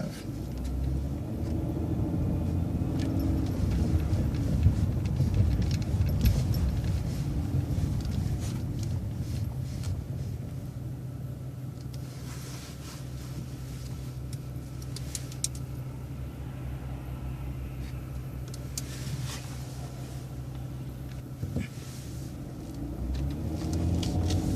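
City transit bus engine running, heard from inside the bus: its pitch rises then eases off in the first few seconds as the bus pulls away, settles to a steady drone through the middle, and rises again near the end. A few faint clicks and rattles sound in the middle.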